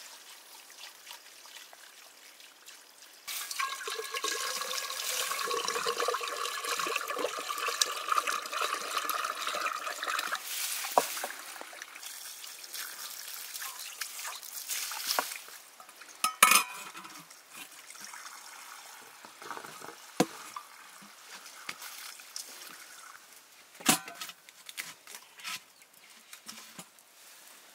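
Water pouring and splashing into a metal pot, with a steady ringing tone over the splash for several seconds. The splashing then dies down, and a few sharp knocks of metal vessels follow.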